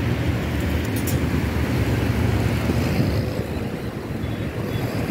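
Large pedestal fan blowing across a charcoal kabab grill: a steady low rumble of rushing air, with a few light metal clinks about a second in as the skewers are turned.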